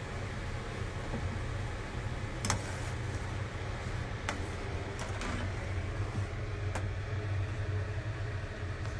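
Steady low hum of the kitchen with soup simmering in an aluminium yukihira pan on a gas stove, broken by several sharp clinks of a metal ladle against the pan as it is stirred.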